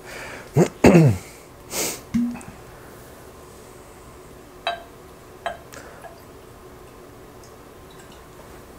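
Three light clinks of glass a few seconds in, each with a brief ring, as a whiskey bottle and tasting glasses are handled. Near the start there is a single short spoken word and a breathy sniff.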